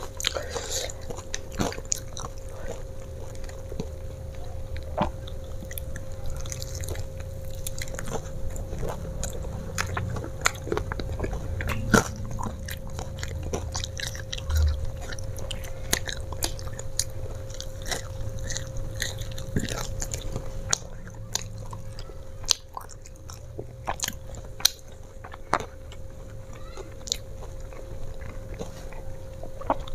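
Eating crispy fried chicken and french fries: many sharp crunching bites over steady chewing.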